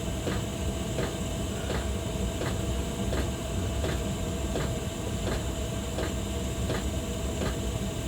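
Fennex butane gas soldering iron burning at full flame, a steady hiss and low rumble, with a light tick repeating about every 0.7 seconds.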